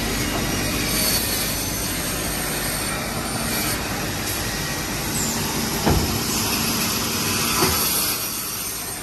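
Holztek CNC travelling-blade panel saw running steadily while batch-cutting wood blanks, with a sharp knock about six seconds in and a smaller one shortly before eight seconds.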